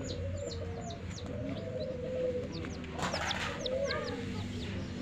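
A group of chicks peeping: many short, high-pitched peeps that fall in pitch, overlapping, with lower clucking from a hen beneath them. A brief rustle about three seconds in.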